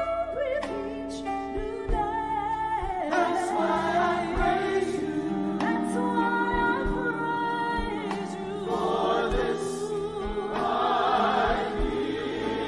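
Choir singing in harmony, holding long chords of many voices.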